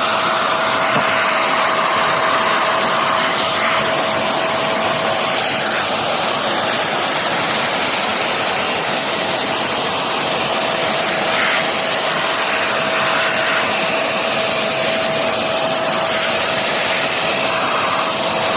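QuickFix 20-litre wet and dry vacuum cleaner's motor running steadily, a loud rushing airflow noise with a constant high whine.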